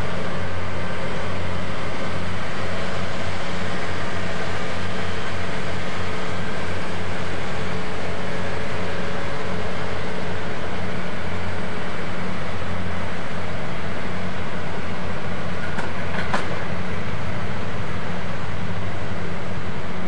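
Diesel engine of a hydraulic truck crane running steadily under load as it hoists a counterweight section off a flatbed truck, a constant low drone. Two short knocks sound about sixteen seconds in.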